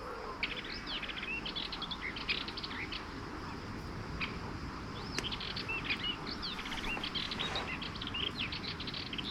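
Small songbirds chirping and singing in quick, varied phrases of short high notes, over a steady outdoor background hiss.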